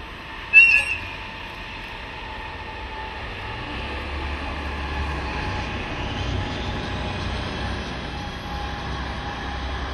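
A DE10 diesel-hydraulic locomotive hauling a passenger train, heard from a distance. About half a second in, one short, high-pitched whistle blast. After that comes a low engine rumble that grows louder from about three seconds in and holds steady as the train runs past.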